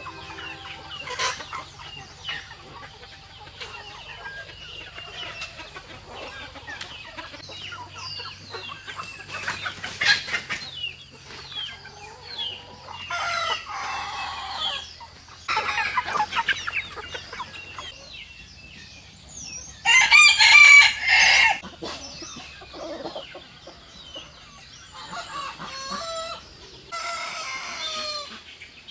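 A flock of chickens clucking and calling, with roosters crowing several times; the loudest crow comes about two-thirds of the way through.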